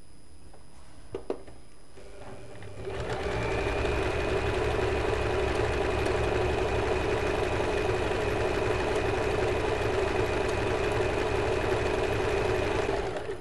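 Usha Janome Fashion Maker computerized sewing machine stitching a decorative embroidery pattern: after a couple of small clicks it starts about three seconds in, runs steadily at an even speed, and stops just before the end.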